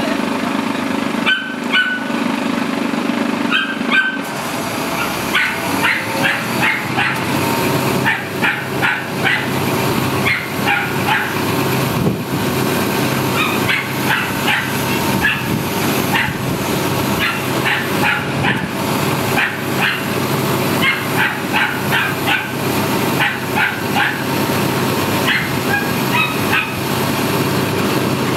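A dog barking repeatedly in short bursts of several barks at a time, over the steady running of a lorry engine.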